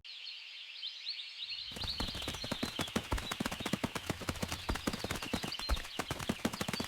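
Rapid, irregular hoofbeats clattering, starting a little under two seconds in, over a steady high chirping.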